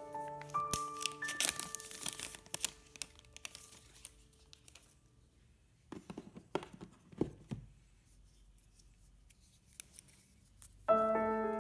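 Plastic protective wrap being torn and crinkled off a MacBook Pro power adapter, then a few light knocks and clicks as the adapter is handled and set down. Soft piano music fades out at the start and returns near the end.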